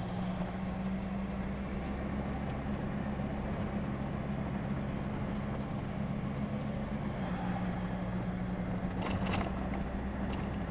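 Car engine running steadily with road and tyre noise, heard from inside the moving car. A couple of brief clicks come about nine seconds in.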